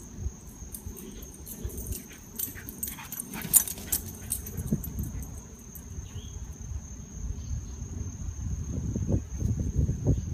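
Greyhound making low dog noises while nosing about under a shrub, with a cluster of sharp clicks and rustles about three seconds in.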